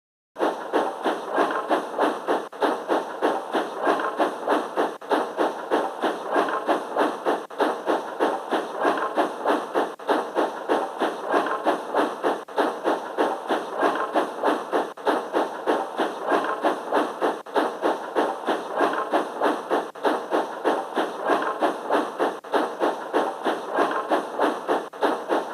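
Steam locomotive chuffing at a steady running pace, an even beat of hissing puffs about three a second, starting suddenly after a brief silence.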